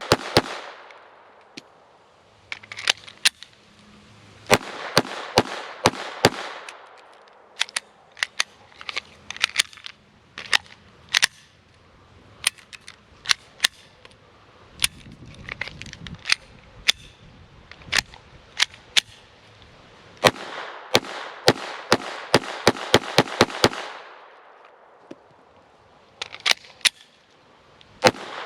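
Taurus TX22 .22 rimfire semi-automatic pistol fired over and over, in irregular strings and fast runs of shots with short pauses between them, shooting a pumpkin apart.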